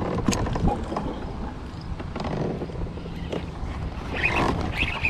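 Wind buffeting the microphone, with knocks and rustling as the angler handles his rod and gear in a kayak and his sleeve brushes the camera. A quick flurry of high clicking sounds comes about four seconds in.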